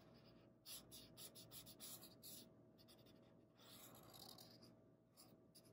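Sharpie marker tip scratching faintly on paper while drawing: a run of quick short strokes about a second in, then a longer stroke around four seconds in.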